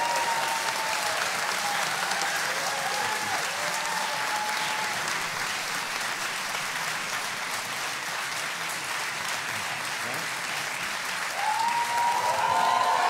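Large theatre audience applauding, dense steady clapping with scattered cheering voices; it grows louder near the end.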